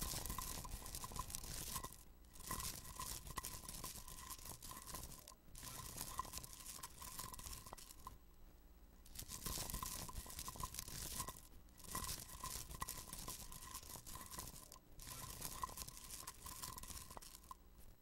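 Crinkling, crunching Foley noise in about six bursts of two to three seconds with brief pauses between, standing in for toppings being put on a pizza.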